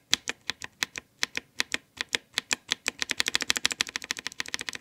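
A freshly lubed blue (clicky) mechanical keyboard switch pressed over and over: sharp clicks, slow at first, then much faster from about three seconds in. Very little of the blue switch's crisp click is left after the lube.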